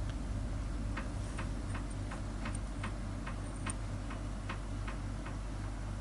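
Light, fairly even ticking, about two to three ticks a second, over a low steady hum.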